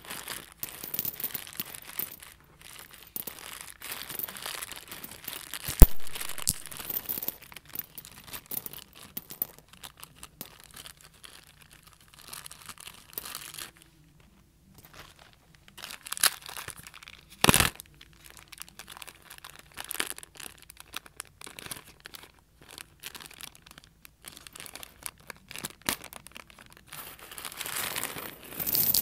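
Plastic packaging crinkling and rustling as it is handled, on and off, with scattered clicks and a couple of sharper knocks about six seconds in and again after about seventeen seconds.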